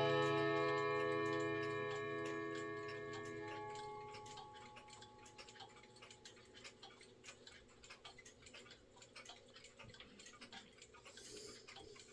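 Rod gong of a 1976 Jauch wall clock with a PL48 movement, just struck, ringing on and dying away over the first few seconds, while the movement ticks steadily throughout.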